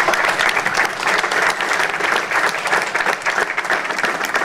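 People applauding: steady, dense hand-clapping.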